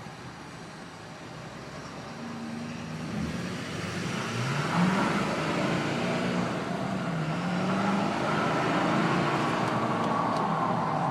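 2012 Ford F-350 Super Duty's 6.7-litre turbo diesel V8 running and getting louder, its pitch climbing about four seconds in, then rising and falling as it is revved or accelerated.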